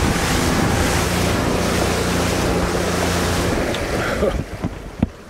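Small boat under way through choppy swell: its motor running steadily under loud wind buffeting on the microphone and rushing water. About four seconds in the engine is throttled back and the noise falls away, with a single sharp knock just before the end.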